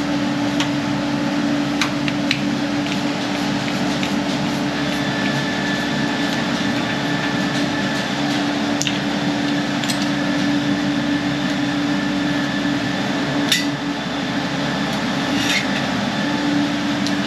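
A motor running steadily with a constant hum, with a few light clicks and taps over it.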